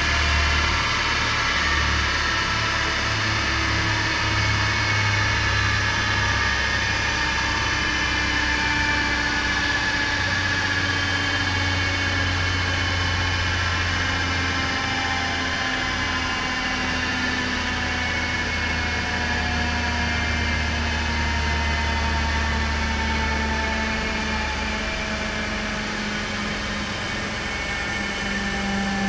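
Car running on a rolling-road dynamometer: a steady low engine hum under a whine that falls slowly and evenly in pitch, as the car and dyno rollers coast down.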